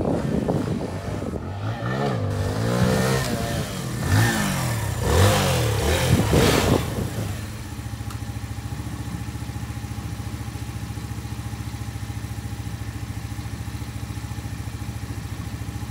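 Tao Tao Hellcat 125 motorcycle's 125cc single-cylinder four-stroke engine revving up and down repeatedly as the bike is ridden. About seven and a half seconds in it changes to a steady, evenly pulsing idle.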